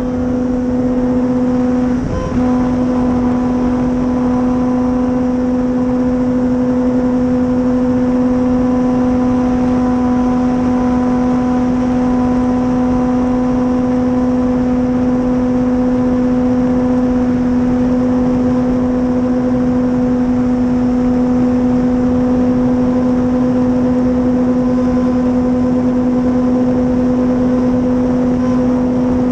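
Steady buzzing hum of an RC warbird's Dual Sky 480 electric motor and propeller, heard onboard over rushing wind noise. It holds one pitch throughout, with a brief dip about two seconds in.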